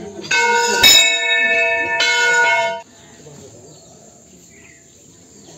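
Hanging brass temple bell struck three times, about a second apart, its ringing cut off sharply just under three seconds in.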